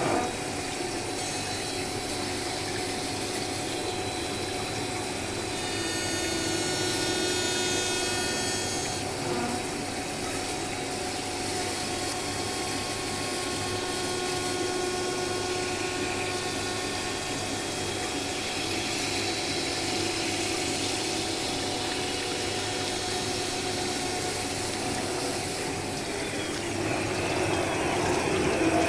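A glass CNC milling machine's spindle runs as its tool grinds a thick glass workpiece under a coolant water spray. The sound is a steady hiss of spraying water with a few whining tones, and a cluster of higher tones comes in for a few seconds about a quarter of the way through. Near the end the sound swells and shifts as the spindle moves off the work.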